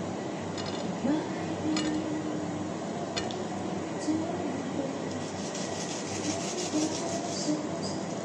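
Small kitchen knife peeling and slicing a ripe mango by hand: a couple of sharp clicks of the blade, then a run of light scraping near the end, over a steady background rumble.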